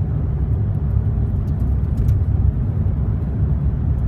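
Car driving on an unsealed dirt road, heard from inside the cabin: a steady low rumble of tyres and running gear, with a few faint ticks scattered through it.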